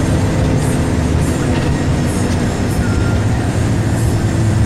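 Bus driving along the road: a steady, loud engine and road rumble with no horn sounding.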